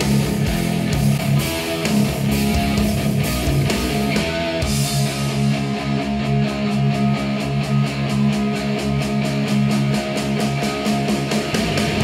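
Guitar-driven rock song played back through hi-fi bookshelf speakers and picked up by microphones in front of them. For the first four and a half seconds it plays through Edifier S2000MKIII active speakers. Then it switches to Q Acoustics 3030i passive speakers driven by a Denon PMA-600NE amplifier, and the top end changes character.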